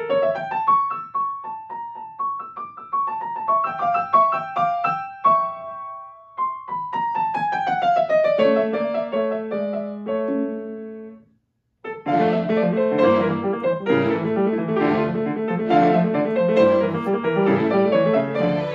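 Grand piano playing a fast scherzo: quick runs of single notes, a short break about two-thirds through, then a denser passage of full chords.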